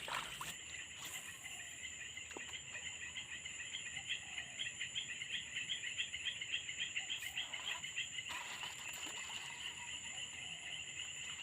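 Steady high-pitched insect chorus of crickets or cicadas, one voice pulsing rapidly and evenly, with a thinner, higher steady whine above it.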